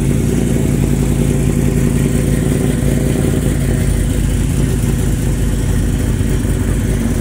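Hot-rodded finned station wagon's engine running near idle as the car rolls slowly, a loud, steady low rumble with a fast even pulse from the exhaust.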